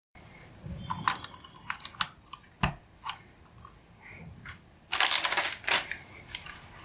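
Scattered sharp plastic clicks from a 3D-printed Dactyl keyboard with clicky blue switches, with a short burst of clatter about five seconds in.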